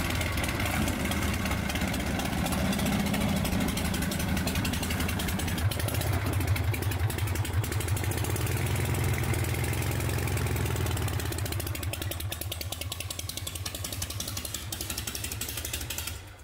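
Harley-Davidson Shovelhead V-twin motorcycle engine idling with a rapid, steady beat, fading away over the last few seconds.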